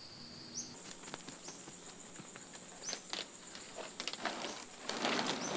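Steady high drone of insects with scattered light clicks and knocks of bamboo sticks being handled. Near the end a louder rustling and scraping as the woven bamboo-stick mat is lifted and moved.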